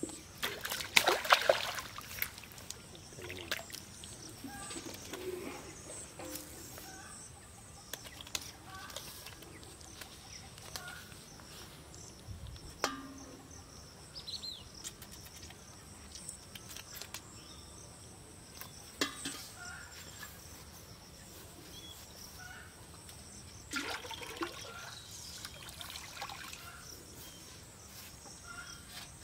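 Pond water splashing, loudest about a second in, where a fish is hooked on the line; later a few sharp knocks and water sloshing and pouring in a pot.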